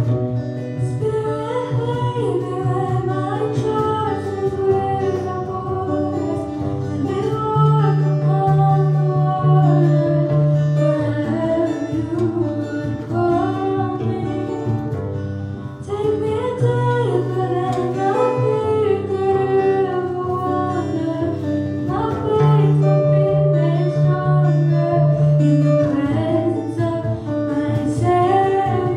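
A girl singing a worship song into a microphone, accompanied by acoustic guitar with steady low bass notes underneath.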